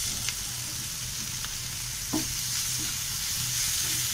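Onion, capsicum and freshly added crumbled paneer sizzling steadily in a pan on high flame, with a wooden spatula knocking against the pan a few times as it stirs.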